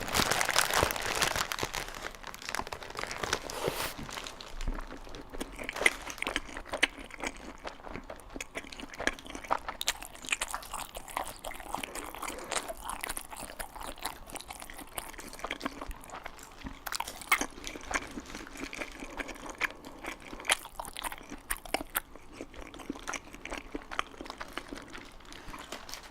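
Close-miked biting and chewing of chili dogs: soft wet mouth smacks and clicks, continuing without a break.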